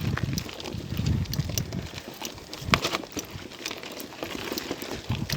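Bicycle riding up a rough dirt trail: tyres rolling and crunching over stones and ruts, with scattered sharp clicks and knocks.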